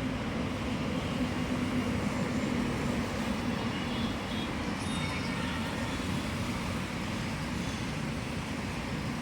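Steady rumble and hum of a moving vehicle.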